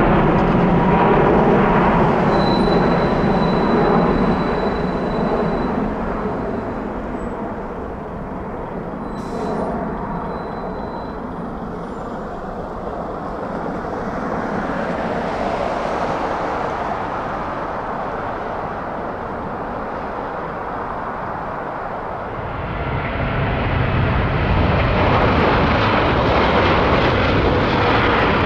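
Jet engines of a departing twin-engine airliner climbing away overhead, loud at first and then fading as it recedes. About 23 seconds in, a louder jet rumble with more low end builds as a British Airways Boeing 787 lifts off the runway.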